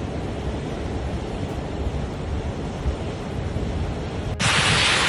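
Rushing floodwater with wind buffeting the microphone. A little over four seconds in the sound cuts abruptly to a louder, brighter steady hiss.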